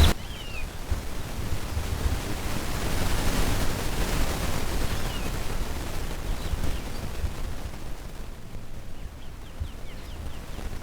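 Wind buffeting the microphone outdoors, with a few faint, thin high chirps: a short falling one near the start, another about halfway, and a quick series near the end.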